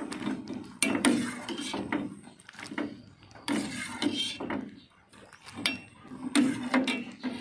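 Irregular knocks, clicks and rubbing of handling noise, with a few louder knocks spread through.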